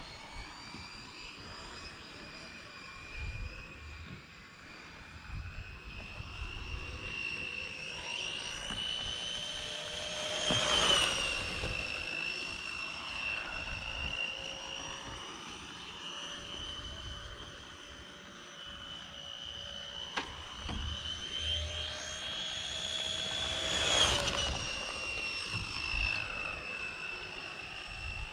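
Scratch-built RC oval car's motor giving a steady high whine as it laps, swelling and rising in pitch as it passes close twice, about thirteen seconds apart, then falling away.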